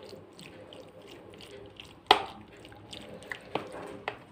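Metal spoon stirring flour-coated raw liver pieces in a plastic colander: soft, wet squishing with a sharp click of the spoon against the bowl about two seconds in and a few lighter clicks near the end.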